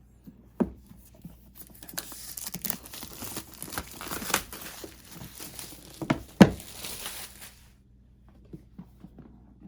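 Crinkly plastic wrapping on a board game box being torn off and crumpled, with a few knocks from handling the box; the loudest knock comes about six and a half seconds in.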